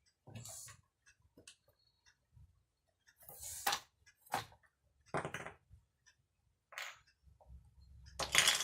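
Wooden toy blocks being handled: irregular knocks and short clattering rattles a second or two apart, the loudest near the end.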